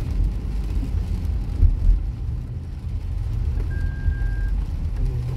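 Steady low rumble of a car's road and engine noise heard from inside the cabin, moving slowly on a wet, rainy road. One short high-pitched beep sounds about four seconds in.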